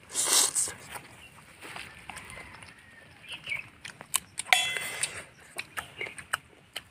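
Close-up eating sounds: two people biting, chewing and sucking on pieces of roasted chicken, with wet mouth clicks and smacks. A short loud noisy burst comes right at the start.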